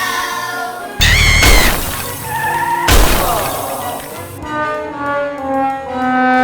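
Two loud crashing, shattering sound effects about two seconds apart, then background music with held notes.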